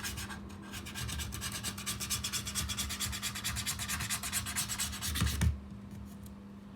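Rapid back-and-forth rubbing and scraping of old battery adhesive off the back of an iPad 4 frame, several strokes a second. The scraping stops about five and a half seconds in, just after a short knock.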